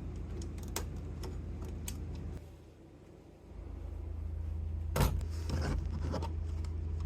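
Metal clicks and clinks from the vending machine's coin collector and keys being handled and taken out, with a louder cluster about five seconds in. Under them runs a steady low hum that dips for about a second partway through and then returns.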